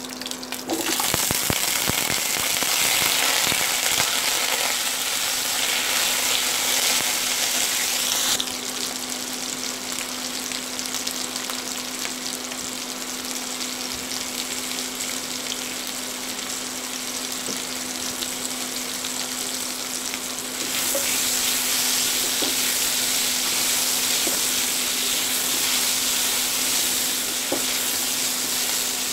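Potato pieces sizzling as they fry in hot oil with nigella seeds and green chillies in a kadai. The sizzle jumps up loud about a second in as they go into the oil, eases after about eight seconds, and rises again about twenty seconds in.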